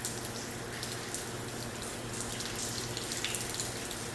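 Steady rain falling, with scattered drops ticking, over a faint low steady hum.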